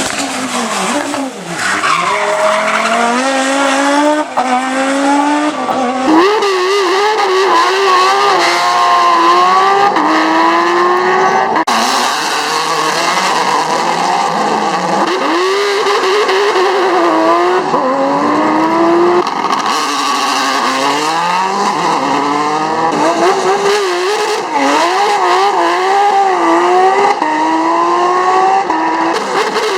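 Rally car engines revving hard on a special stage, the pitch climbing through each gear and dropping at every shift, again and again. The sound changes abruptly several times, around 6, 12, 19 and 24 seconds, as one car's run gives way to another's.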